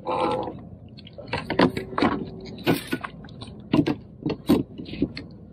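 Irregular clicks, knocks and rattles of a landing net and fishing tackle being handled on a kayak.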